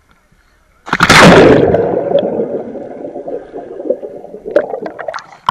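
Someone plunging into pool water: a sudden loud splash about a second in, then underwater bubbling and churning that slowly dies down, heard from below the surface through a waterproof housing.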